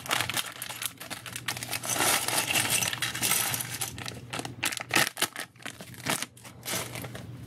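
Mega Construx plastic building pieces clattering onto a pile as a crinkly plastic parts bag is emptied, a dense run of clicks for about four and a half seconds, then a few single clicks of pieces knocking together.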